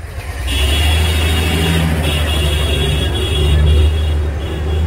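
Motor vehicle engine running close by: a loud, steady low sound that comes in suddenly, with a high whine that comes and goes above it.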